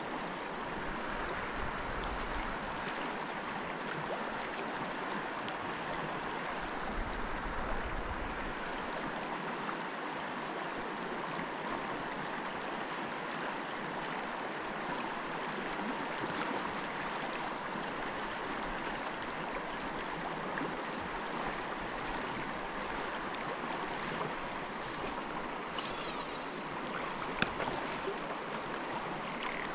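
Steady rushing of a fast-flowing river current, with a few brief high-pitched sounds now and then and a single sharp click near the end.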